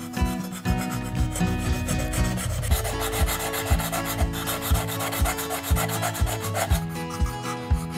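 Steel molding plane iron rubbed back and forth on abrasive by hand, a continuous scratchy grinding as its curved profile is reground and sharpened.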